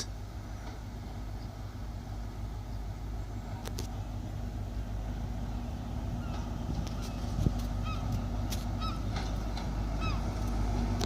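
Diesel engine of a Class 43 HST power car running as the train draws into the platform: a steady low rumble with a hum, slowly growing louder. Short chirping calls repeat about once a second in the second half.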